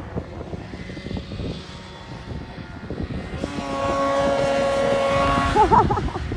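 Snowmobile engine held at high revs, its steady high drone swelling louder for about two seconds, then wavering up and down in pitch near the end, over constant low rumbling and buffeting.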